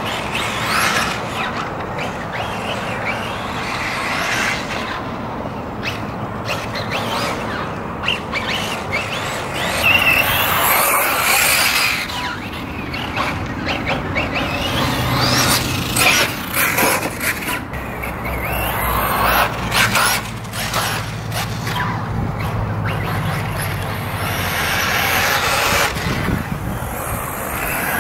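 Kyosho MP9e electric 1/8-scale RC buggy running laps on a dirt track: brushless motor whine and tyres scrabbling on the clay, swelling and fading several times as it comes and goes.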